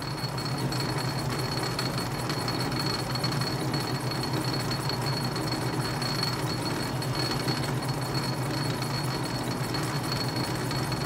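Atlas metal lathe running steadily, its change gears set up for thread cutting at 16 threads per inch, turning work between centres with a lathe dog: an even mechanical hum with a thin, steady high whine.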